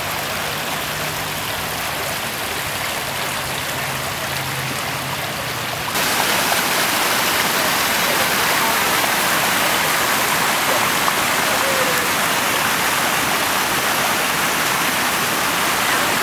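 Floodwater rushing through a washed-out street, over and under broken asphalt: a steady rush of water that gets louder about six seconds in.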